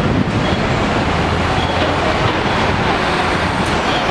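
City street traffic noise: a steady, loud rumble of vehicle engines and passing cars.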